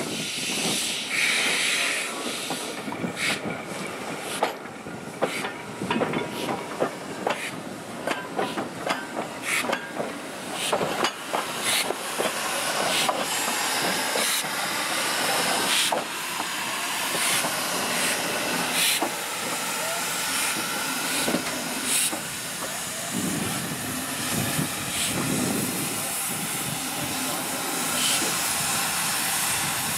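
Victorian Railways K class 2-8-0 steam locomotive running under steam on a test run after overhaul: a steady steam hiss with frequent sharp clanks and knocks, which thin out in the second half.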